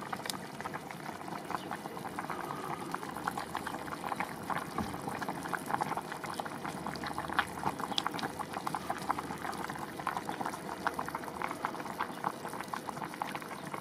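Vegetable stew bubbling at a rolling boil in a cast-iron pot, a steady dense crackle of popping bubbles.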